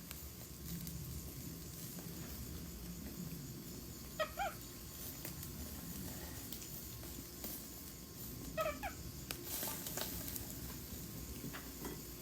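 An animal's short squeaky calls, two brief ones about four seconds apart, over a faint steady background.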